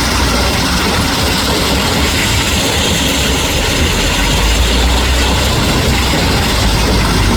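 Dump truck's engine running steadily with a heavy low rumble.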